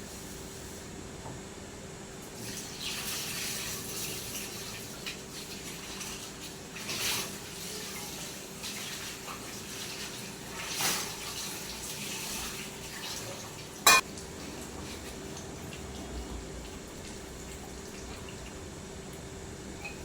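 Water running from a tap and splashing in a sink in uneven surges, then one sharp clack, like a dish or utensil set down, about fourteen seconds in. A faint steady hum runs underneath.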